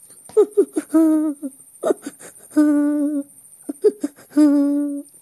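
A high voice making wordless, hummed cries with no words: three rounds of a few short notes, each ending in a longer held note.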